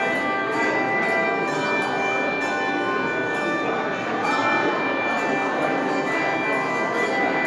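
Handbell choir playing: handbells rung in turn, their clear tones ringing on and overlapping into chords.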